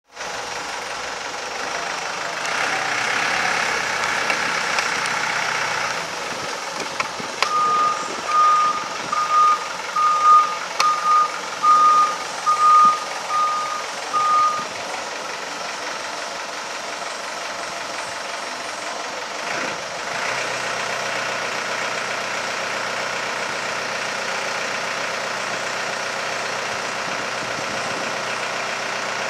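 Daewoo D30G diesel forklift's engine running, with its reversing alarm beeping about ten times in the middle, evenly spaced beeps at a single pitch. From about two-thirds in the engine speeds up into a louder, steady sound as the hydraulics lift the mast.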